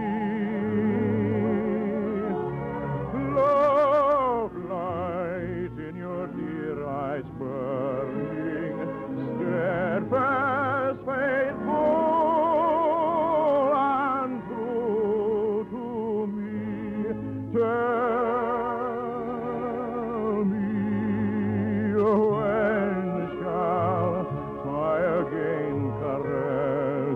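Operetta music: singing with strong vibrato over an orchestra, in an old radio broadcast recording with the top end cut off.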